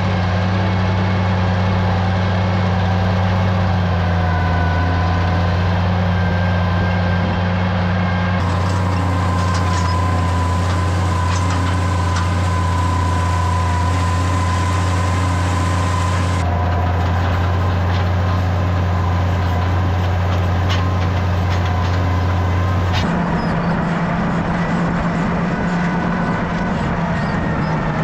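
Tractor engine running steadily at an even speed, its tone shifting slightly a few times.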